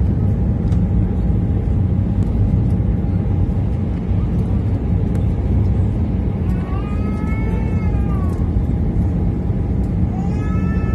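Steady low rumble of engine and airflow noise inside the cabin of an Airbus A320 airliner on descent, with a faint steady hum. A high, wavering voice-like sound rises and falls for about two seconds past the middle, and starts again near the end.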